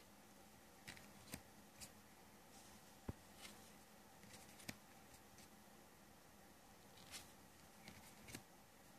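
Faint handling of a fortune-telling card deck: several soft swishes and light clicks as cards are slid off the stack and laid down, with one sharper click about three seconds in, over a low room tone.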